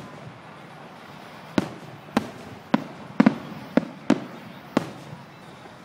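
Fireworks bursting: about eight sharp bangs at uneven intervals, two of them in quick succession near the middle.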